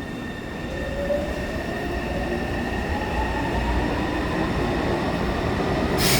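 Taipei Metro C301 electric metro train pulling out of the station. Its traction motor whine rises steadily in pitch as it speeds up, over a low rumble that grows louder. A brief hiss comes near the end.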